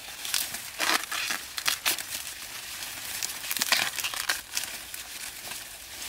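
Corn plants being handled by hand: dry leaves and husks rustling and crinkling in irregular bursts.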